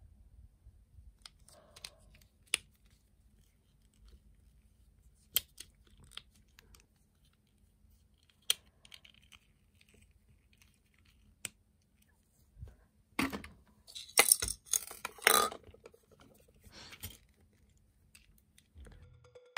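Small plastic parts of a toy electric train model being handled: scattered sharp clicks every few seconds, then a few seconds of louder scraping and rustling about two thirds of the way through.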